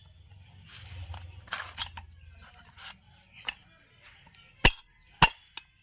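Metal parts of a John Deere tractor PTO gearbox being handled: a low rumble and rustle at first, then several sharp metallic clinks in the second half, the loudest two near the end.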